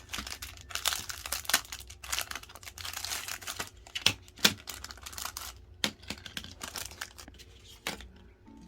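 Plastic packaging crinkling and rustling as it is handled and opened, with a run of sharp crackles and small taps. It thins out near the end.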